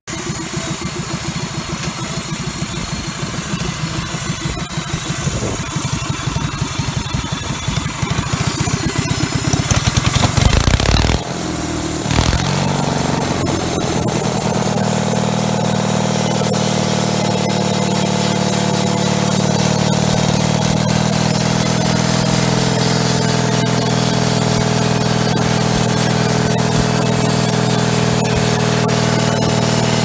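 Kohler engine of a homemade bandsaw mill running, rough and pulsing and growing louder over the first ten seconds. About eleven seconds in the sound changes briefly, then settles into a steady, even running tone.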